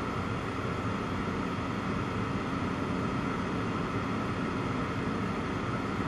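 Steady cabin noise of a strut-braced high-wing light aircraft in flight: engine and propeller drone mixed with rushing air.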